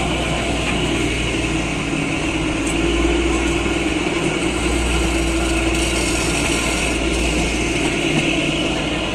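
Kalka–Shimla narrow-gauge toy train running through a tunnel: a steady rumble of wheels and carriage with a constant low hum.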